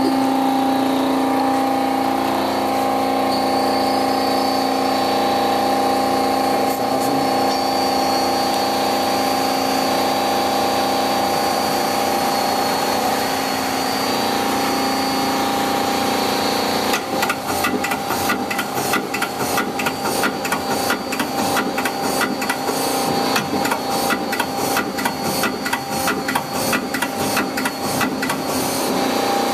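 1997 Mazak QT20 CNC lathe running with a steady machine hum and a faint high whine. From a little past halfway, rapid irregular ticking and clattering joins in over the hum.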